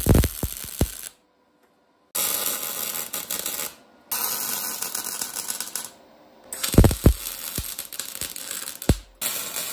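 MIG welder arc crackling and sizzling as it lays short welds on steel, in four or five bursts with brief pauses between them. A few sharp knocks come near the end.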